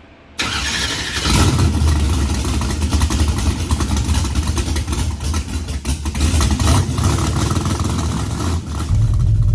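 A loud vehicle engine running hard, starting abruptly about half a second in.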